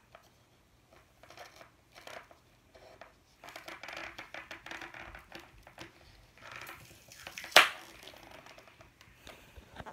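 Packaging being worked open: crinkling and scratching in short spells, with one sharp snap about seven and a half seconds in.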